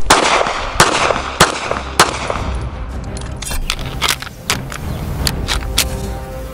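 Luger P08 pistol fired shot after shot: a few sharp reports about half a second apart, then a quicker string of shots in the second half.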